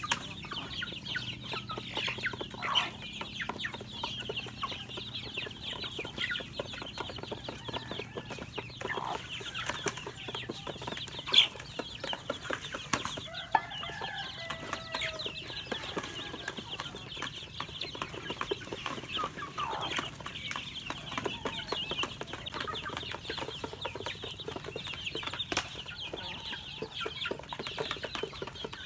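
A flock of chicks and young chickens peeping and calling without a break, a dense high chatter, with many quick clicks of beaks pecking grain from a plastic feed dish.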